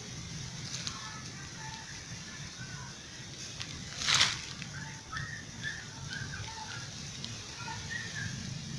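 Outdoor background with a steady low hum and scattered short, high chirps. About four seconds in there is one brief, loud burst of rustling noise.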